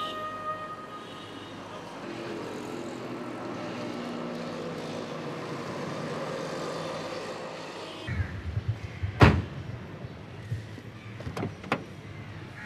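Street traffic with a car engine running, then a few low knocks and a car door shutting with a loud clunk about nine seconds in, followed by two sharp clicks.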